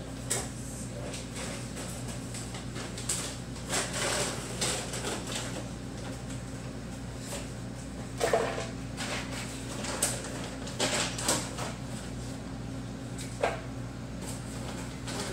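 Steady low hum of the reef tank's pumps. Scattered short knocks and clicks sound over it, the loudest about eight seconds in.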